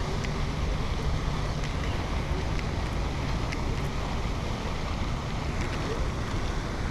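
Wind buffeting the microphone, a steady low rush that holds level throughout, with a few faint light ticks over it.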